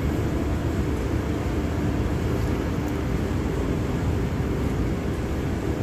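Steady low rumble, unbroken and even in level throughout.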